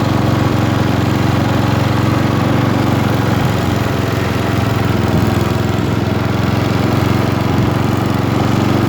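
Riding lawnmower engine running steadily while the mower is driven along; the owner runs this engine without a governor.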